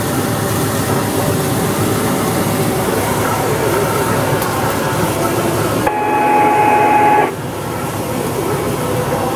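Cessna 172 engine and propeller running, heard as loud, steady cabin noise with wind. About six seconds in, a steady mid-pitched tone sounds for about a second and a half, then cuts off.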